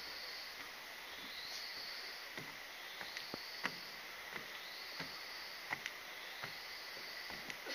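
Rainforest ambience: a steady high-pitched insect drone, with a rising call that repeats about every one and a half to two seconds. Light, irregular taps of footsteps on the trail are scattered through it.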